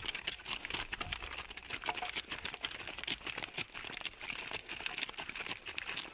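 Hooves and footsteps crunching on a gravelly dirt track as a yoked pair of bullocks walks along, a dense, irregular crackle of small clicks.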